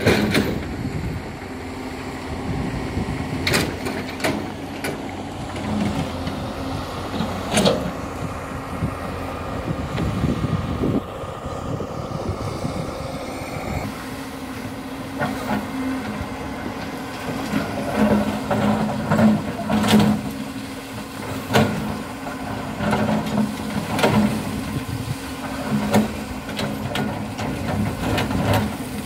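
Excavator engine running with a steady hum, with frequent short, sharp knocks and clanks over it.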